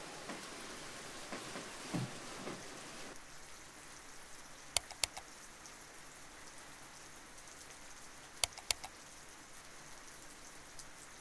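Two quick pairs of sharp computer-mouse clicks, a few seconds apart, over a faint steady hiss.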